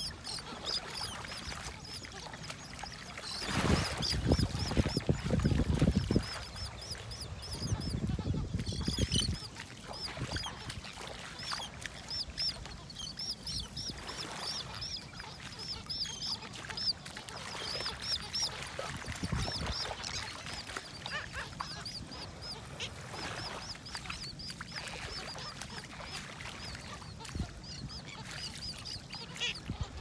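A large mixed flock of gulls and terns calling, many short, high calls overlapping without a break. Twice, a few seconds in, a loud low rumble of wind on the microphone rises over the calls.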